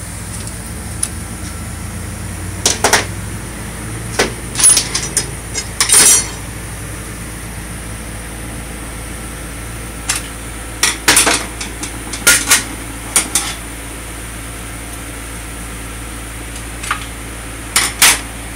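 Metal hand tools and loose parts clinking and knocking against a Honda BYBA automatic transmission case as it is taken apart, in short irregular clusters of sharp clanks, over a steady shop fan hum.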